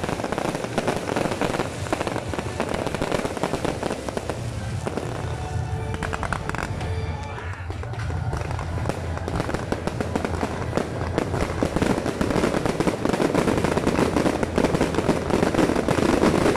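Fireworks display going off in a dense barrage: rapid crackling and popping from aerial bursts and sparking fountains. It grows louder over the last few seconds.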